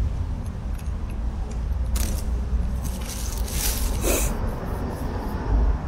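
Thin plastic bag crinkling as it is handled, in bursts about two seconds in and again around three and a half to four seconds in, over a steady low rumble.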